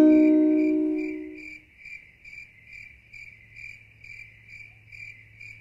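Background music ends on a held chord that fades out over the first second and a half. Then comes an evenly repeated high chirping, about two and a half chirps a second, over a faint low hum.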